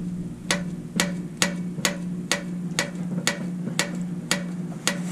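Sharp metallic clicks about twice a second as a varnish-stuck valve lifter is worked up and down in its bore in a cast iron engine block with a stack of magnets on a zip tie, gradually pulling it free. A steady low hum runs underneath.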